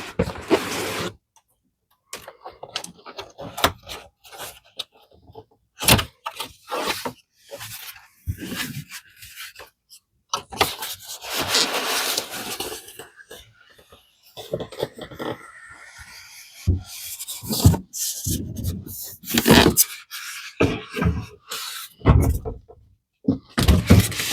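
A cardboard box being handled and moved: irregular scraping and rustling of cardboard, with short knocks and thumps.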